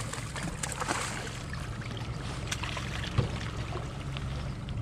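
A hooked striped bass splashing and thrashing at the water's surface beside the boat, with water trickling and a few sharp clicks. A steady low hum runs underneath.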